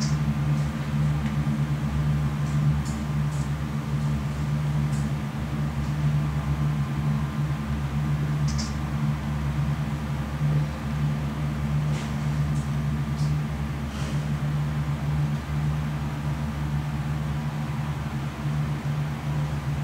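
A steady low drone: several deep tones held without change, with a few faint, short clicks over it.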